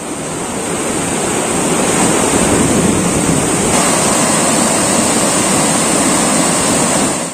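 Torrent of floodwater rushing and churning: a loud, steady wash of water noise that builds over the first second or two and cuts off abruptly at the end.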